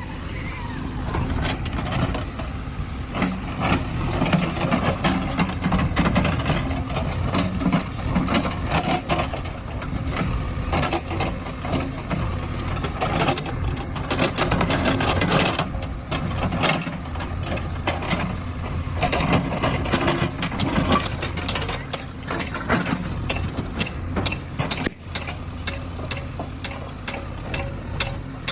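Heavy diesel machinery running steadily with repeated knocks and clatter over the engine.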